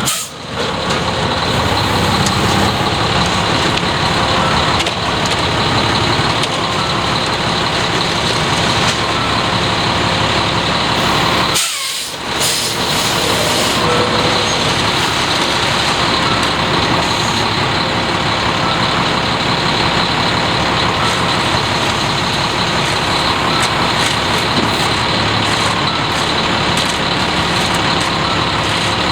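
Front-discharge concrete mixer truck running steadily under load, its engine driving the turning drum as concrete is discharged. The sound drops out briefly about twelve seconds in, then carries on unchanged.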